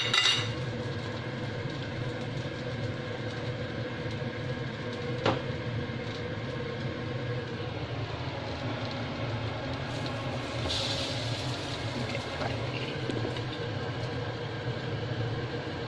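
Egg-dipped bread frying in a buttered pan: a steady sizzle under a constant low hum, with a single sharp click about five seconds in.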